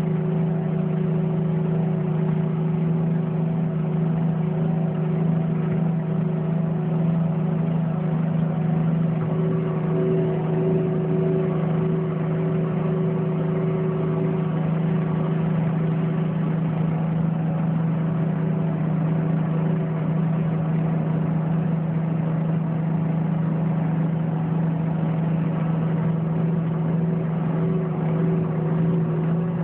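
Volvo L180E wheel loader's six-cylinder diesel engine and drivetrain, heard from inside the cab while driving along a road. It makes a steady drone with a strong low hum that holds one pitch throughout.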